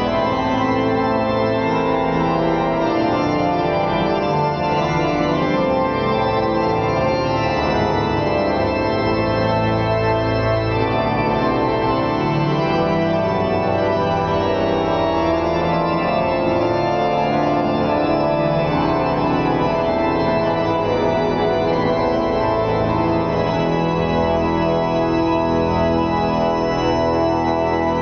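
Church pipe organ playing sustained full chords that change slowly, steady and loud throughout.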